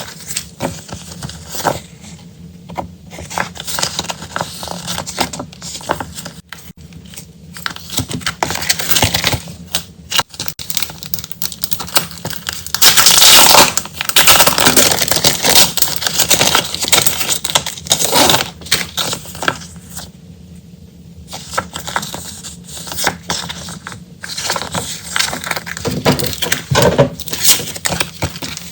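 Packaging and stationery items being handled: plastic and paper crinkling and rustling, with light clicks and taps in irregular bursts, loudest about halfway through.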